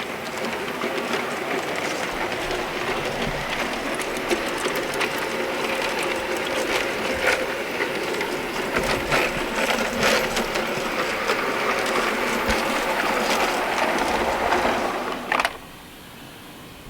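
G gauge model train running on garden railway track: a steady whir from the locomotive's motor and gears, with wheels clicking over the rail joints. It stops abruptly with a click about fifteen seconds in.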